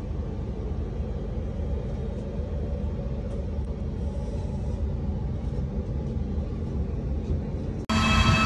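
Steady low rumble of a parked Airbus A320 airliner heard from inside the cockpit. Near the end it cuts abruptly to a louder, steady aircraft whine made of several held tones over the rumble.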